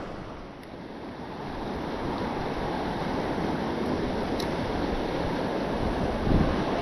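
River water rushing steadily, a hiss that swells over the first two seconds, with a soft low thump near the end.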